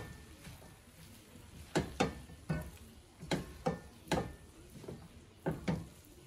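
A spatula knocking and scraping against a metal pot while stirring fried rice: sharp knocks, mostly in pairs, starting about two seconds in and repeating every half second or so until near the end.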